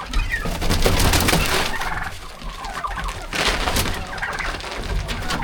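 Domestic turkeys gobbling and calling, with two bursts of noise, near the start and about three and a half seconds in.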